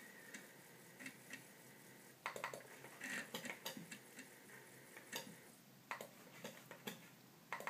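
Faint, irregular clicks from an Amiga 1200's 3.5-inch floppy drive, its heads stepping as it reads the disk. There are about a dozen clicks, scattered unevenly.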